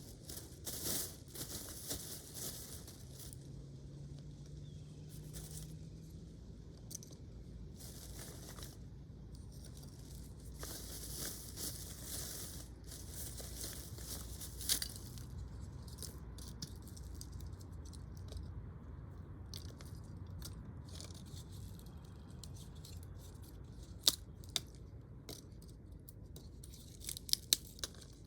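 Outdoor ambience: irregular bursts of high hissing, crackling noise lasting a second or two each, over a faint low hum, with a few sharp clicks near the end.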